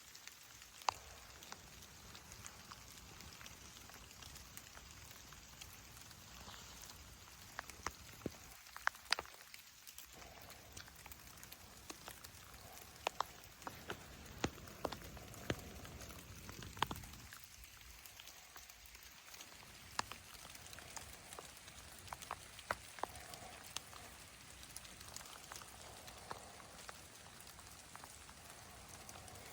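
Raindrops falling irregularly, each a sharp tick, over a faint steady hiss of rain.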